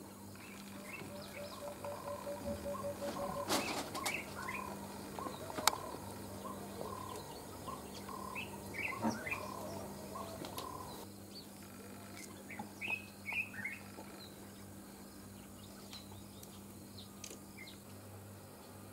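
Small birds chirping and calling, with a run of quick evenly spaced notes in the first few seconds and a few sharp clicks between about four and six seconds in, over a steady low hum.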